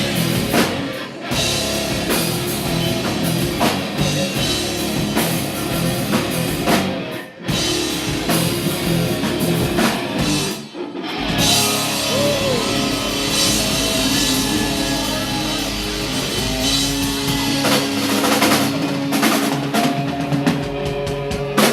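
Rock band playing live with drum kit and guitars, the whole band cutting out for a brief moment three times, about 1, 7 and 11 seconds in, before coming back in.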